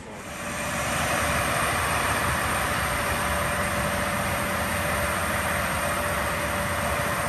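Biodiesel cog-railway locomotive's engine idling steadily: a low rumble under a broad hiss, with a steady whine.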